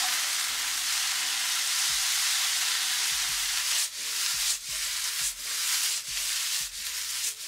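Konjac noodles and mixed vegetables sizzling in a hot frying pan as they are stirred with tongs. From about four seconds in, the pan is tossed over the gas flame and the steady sizzle breaks into regular swishing pulses, about one and a half a second.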